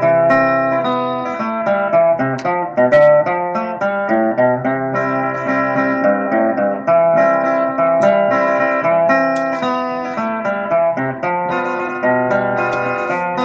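Guitar instrumental: a melody picked note by note over lower bass notes, with no singing.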